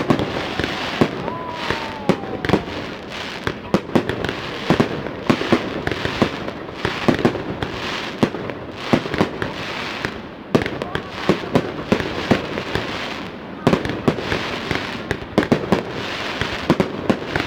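Fireworks display: a rapid, continuous run of sharp bangs over a steady crackle, with a falling whistle in the first couple of seconds.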